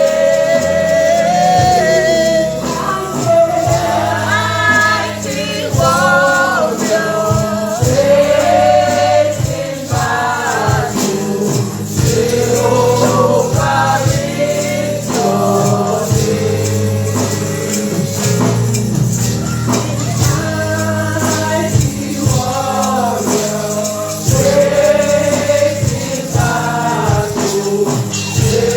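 Gospel praise singing: a lead voice and choir with tambourine over a steady bass line.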